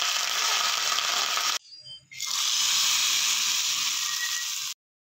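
Hot oil sizzling with mustard seeds and curry leaves in a small steel pan, a tadka being tempered. The sizzle breaks off about one and a half seconds in, comes back half a second later, and stops abruptly near the end.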